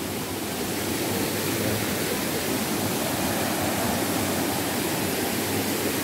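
Mountain stream water rushing over rock slabs in a small cascade: a steady, unbroken rushing.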